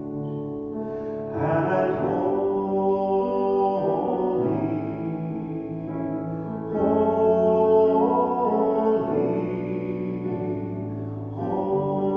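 Church music: singing with grand piano accompaniment, in slow phrases of held notes.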